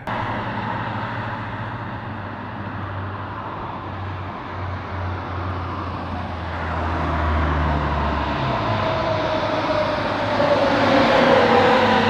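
Road traffic noise with a low engine hum that stops about eight seconds in, then a vehicle passing close, growing louder with its pitch sliding slowly down as it goes by.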